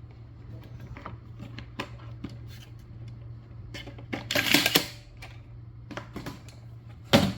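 Folding cart parts being handled, making light clicks and knocks, with a louder rattling scrape about four seconds in and a sharp knock near the end. A steady low hum runs underneath.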